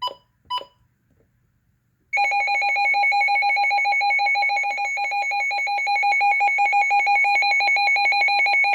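Midland WR100 weather radio: two short beeps as its buttons are pressed, then about two seconds in its alert siren starts, a loud electronic tone trilling rapidly and steadily.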